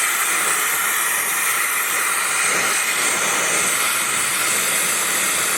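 Gas torch with a rosebud heating tip burning with a loud, steady hiss as it heats a steel rivet red-hot for hot riveting.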